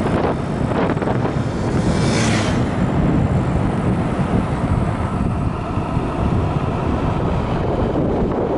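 Wind buffeting the microphone of a camera on a moving electric scooter: a steady low rumbling noise with no engine note, and a brief hissing whoosh about two seconds in.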